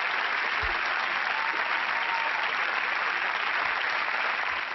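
Audience applauding steadily after a song.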